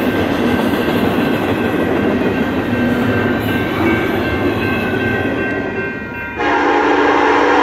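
Train running with a steady rumble. About six seconds in, the locomotive's air horn suddenly starts sounding a loud, steady multi-note chord.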